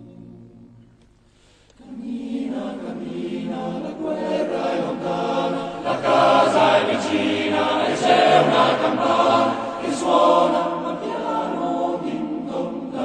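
Choral music: a choir singing slow, sustained harmonies, entering about two seconds in after a brief lull and swelling louder midway.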